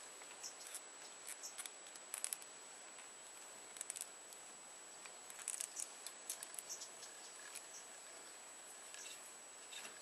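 Scattered light clicks and taps, irregular and in small clusters, over a steady background hiss with a faint high whine.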